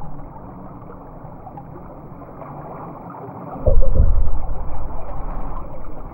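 Underwater hiss and rumble, then, about three and a half seconds in, a loud gurgling rush of scuba exhaust bubbles from a diver's regulator that lasts about two seconds and fades.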